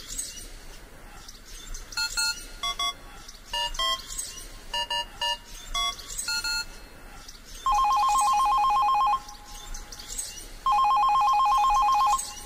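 Touch-tone phone dialing a number, about ten short two-tone beeps, then the line ringing twice in long warbling bursts about a second and a half each.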